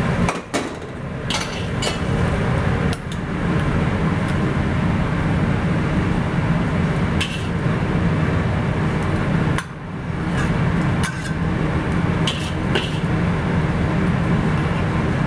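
Metal wok spatula scraping and clinking against a steel wok as stir-fried beef is scooped out onto a plate, about ten sharp clinks spread through. Underneath is a loud, steady low roar.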